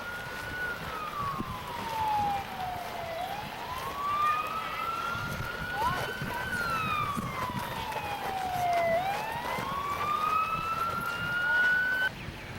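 Emergency vehicle siren wailing, slowly rising and falling in pitch through about two long cycles, then cutting off abruptly near the end.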